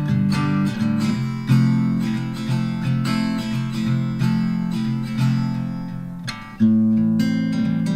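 Acoustic guitar music, strummed steadily, with a brief lull and a fresh loud strum near the end.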